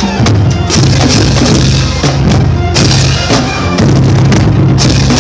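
Loud music with a heavy, sustained bass line that changes notes every second or so, and steady drum hits.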